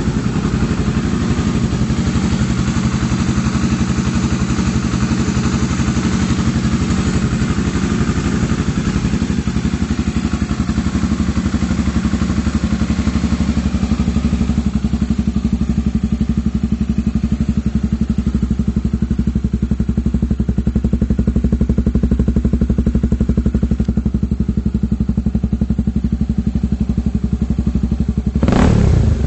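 Honda XRE 300's single-cylinder engine idling through an aftermarket Roncar TRS trioval exhaust, a steady deep pulsing note, with one quick blip of the throttle near the end.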